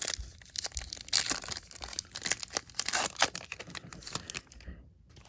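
Crinkly plastic wrapper of a Bowman baseball card pack being torn open and crumpled by hand, a dense crackling rustle that stops near the end.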